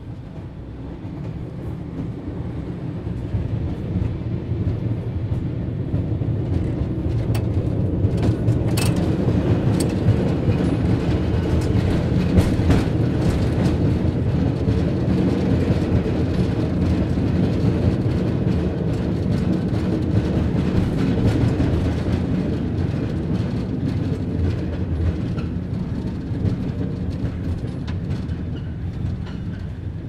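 Cable car running with a low, steady rumble that grows louder over the first ten seconds or so, holds, then fades toward the end, with a few sharp clicks and clanks along the way.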